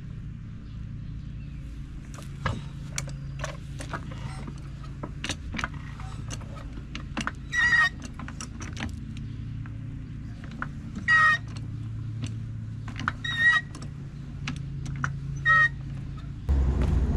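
Mechanic's tools working on a car's rear suspension: scattered metal clicks and clanks, with four short whirring bursts of a small power tool, over a steady low hum. A louder low rumble starts near the end.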